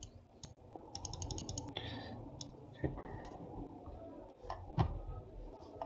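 Faint computer mouse clicking: a quick run of about ten light clicks about a second in, then a few single clicks and one louder knock near the end, over a low room hum.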